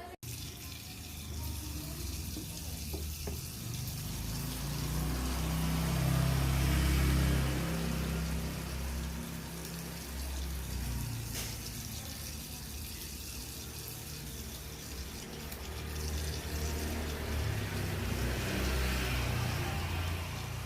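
Tap water running into a sink while hands are washed. The flow is steady and is loudest about six to seven seconds in.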